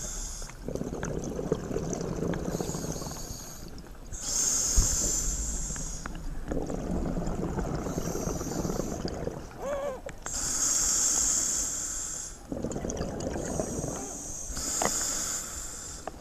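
Scuba diver breathing through an open-circuit regulator underwater, close to the microphone: hissing inhalations alternate with rumbling bubble exhalations, about four breaths in all. A brief wavering tone sounds about ten seconds in.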